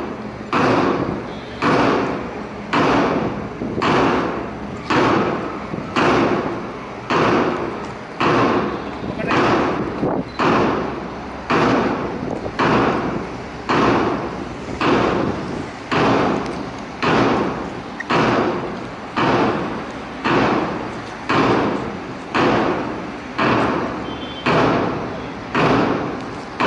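Steady time-keeping beat for a mass PT drill: a sharp strike about once a second, each one dying away over most of a second.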